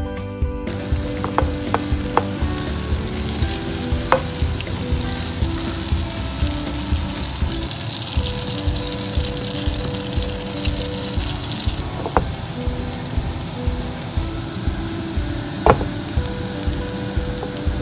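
Minced garlic frying in hot butter in a nonstick pan: a strong sizzling hiss starts about a second in and eases after about twelve seconds, with a few sharp clicks. Soft background music runs underneath.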